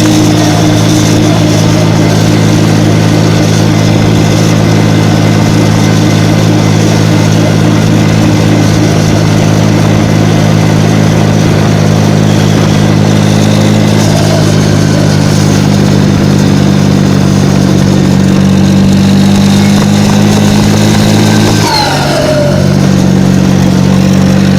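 Valmet 565 tractor's turbocharged diesel engine running steadily at raised revs with its turbo whistling. Near the end the revs drop, and the turbo whistle falls sharply in pitch as it spools down.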